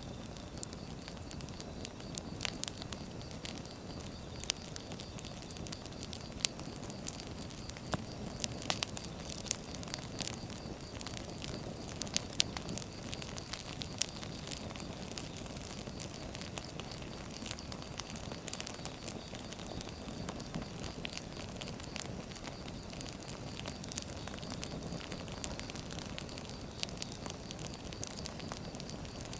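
Firewood burning: a steady low rush of flames with frequent sharp crackles and pops scattered irregularly throughout.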